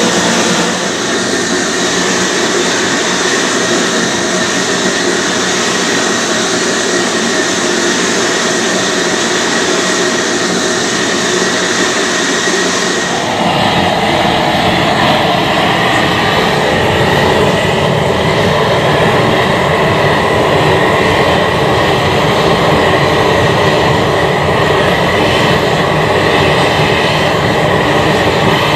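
Gas torch flames burning with a steady rushing noise as they heat a copper boiler for silver soldering. About halfway through the sound abruptly turns deeper and a little louder.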